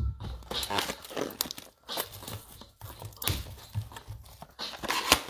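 Cardboard NBA Hoops blaster box of trading cards being torn open by hand: a string of irregular crinkling and ripping, the sharpest rip near the end.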